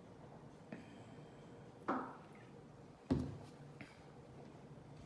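A few short, soft sounds of someone drinking a fizzy soft drink, likely gulps. Two stand out, about a second apart, the second the loudest.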